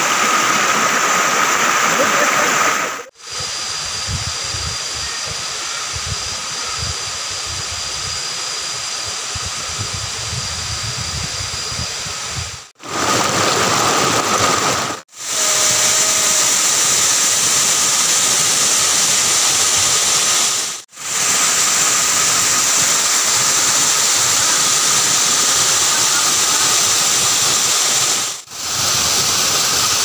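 Water rushing over rocks at a small rocky cascade and a waterfall, a loud, steady hiss of falling water, cut off sharply for an instant several times. For about ten seconds after the first break, a lower rumble sits under a duller water sound.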